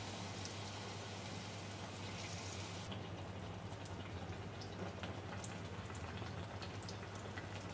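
A pancake of mango-and-jaggery batter deep-frying in hot oil in a wok: a steady sizzle. The sizzle thins out about three seconds in, leaving small scattered pops and spits.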